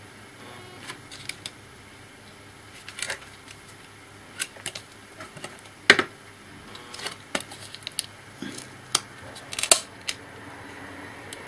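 Irregular sharp clicks and taps as the insides of an old laptop are handled and taken apart by hand, with the loudest knocks about six seconds in and again near the end.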